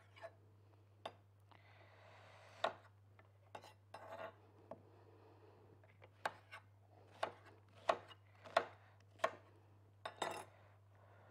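Kitchen knife chopping on a cutting board: irregular sharp knocks, roughly one every half second to second, with a few soft scraping strokes between them.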